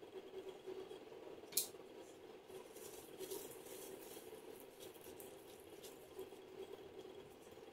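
Faint rubbing and rustling of gloved hands massaging an exfoliating gommage over facial skin, with a single sharp click about one and a half seconds in. A steady low hum sits beneath.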